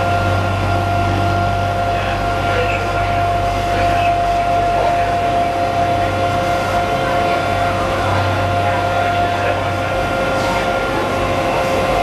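Engine of a Disney Friendship water taxi running steadily: a constant low drone with a steady whine over it.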